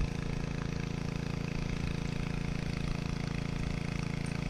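A steady engine-like hum at an even idle, unchanging throughout.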